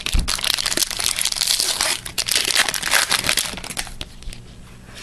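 Foil wrapper of a hockey trading-card pack being torn open and crinkled by hand: dense crackling for about three and a half seconds, then dying down to a few scattered crackles.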